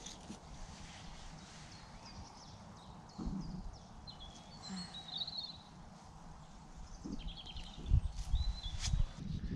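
Small birds chirping and trilling in short phrases over steady outdoor background noise, with a few low thumps near the end.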